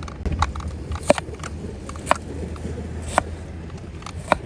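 Sharp clinks and taps of cooking utensils, about five of them roughly a second apart, some with a short ring, over a steady low rumble.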